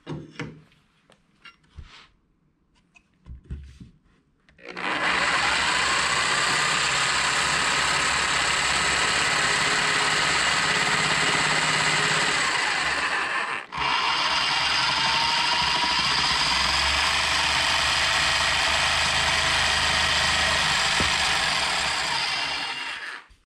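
DeWalt corded jigsaw cutting through half-inch pre-finished birch plywood, finishing a notch begun on the table saw. It starts about five seconds in after a few light handling knocks, runs steadily with a brief break about halfway, and stops near the end.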